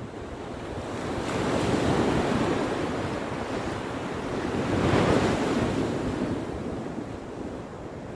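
Sea waves washing onto a rocky shore, the rush swelling twice, with wind buffeting the microphone.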